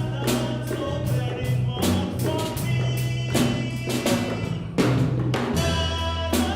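Music with a steady drum beat of about two strokes a second over held bass notes; the bass moves to a lower note near the end.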